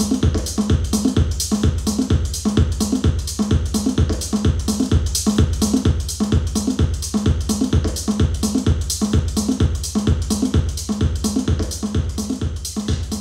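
Music with a steady, even beat and deep bass pulses.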